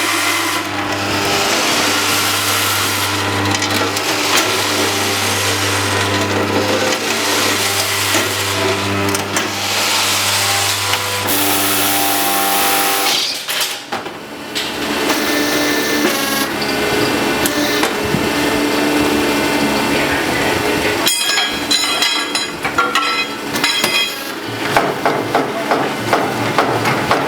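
Hydraulic hollow-block press running: a steady motor hum with a brief hiss near the middle, then the hum stops and metal clattering and rapid rattling clicks follow as the machine works through its cycle.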